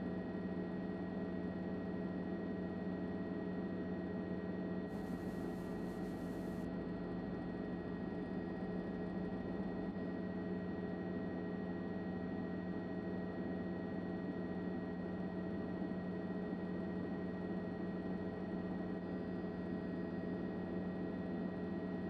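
Steady hum and hiss with several fixed tones, unchanging throughout, with a short added high hiss about five seconds in lasting under two seconds.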